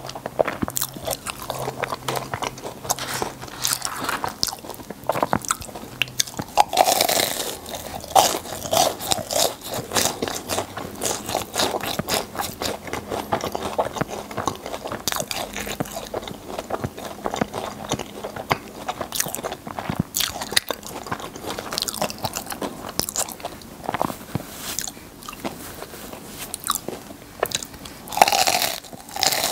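Close-miked chewing and crunching of crisp, sugar-coated filled churros, with fresh crunchy bites about 7 seconds in and again near the end.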